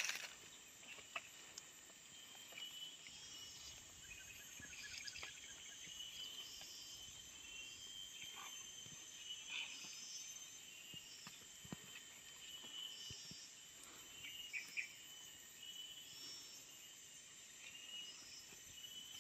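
Faint chorus of insects: a steady high trill with short chirps repeating about once a second, and a few faint scattered clicks.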